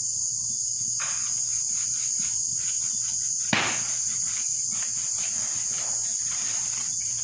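Steady, high-pitched chirring of insects throughout. From about a second in there are soft dabbing strokes of a silicone pastry brush spreading melted butter over hot bread rolls, and a single sharp knock about three and a half seconds in.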